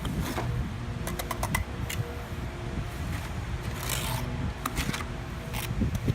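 Mortar being scraped and spread on the back of a stacked-stone veneer piece, with a quick run of sharp clicks about a second in as stone is handled. A steady low rumble sits underneath.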